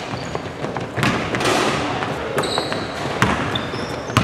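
Basketball bouncing on a hardwood gym floor a few times, with short high sneaker squeaks and running footsteps, all echoing in a large hall.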